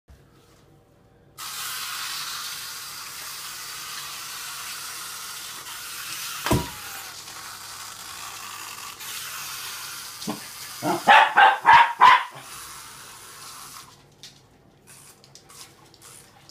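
Cairn terrier barking in a quick run of about five sharp barks about eleven seconds in. A steady rushing hiss like running water runs underneath, and there is one single sharp sound about six and a half seconds in.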